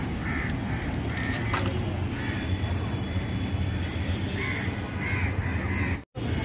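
Crows cawing, short harsh calls repeated in small clusters, over a steady low background rumble. The sound cuts out for a moment near the end.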